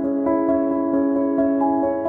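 Soft instrumental background music with held chords and new notes coming in a few times a second.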